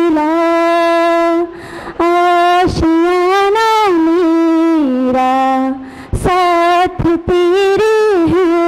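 A woman singing a Hindi song solo and unaccompanied into a microphone, in long held notes that slide from pitch to pitch. She breaks off briefly for breath about a second and a half in and again about six seconds in.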